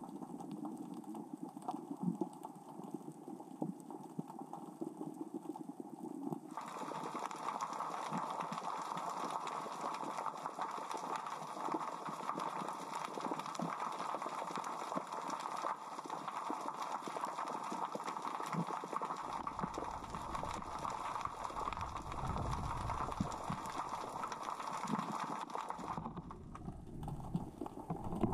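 Underwater: small rocks rolling and clicking against each other across the sea floor as the current and tide move them, a steady crackle of many small ticks. A hiss joins in about a quarter of the way through, and a low rumbling comes in for a stretch near the end.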